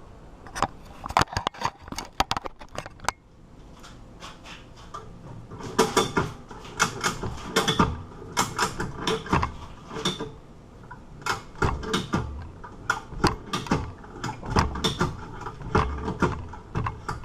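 Ratchet strap being cranked tight, its pawl clicking in quick runs: a burst of clicks about a second in, a pause, then repeated groups of clicks. The strap is drawing bolt cutter handles together under heavy load.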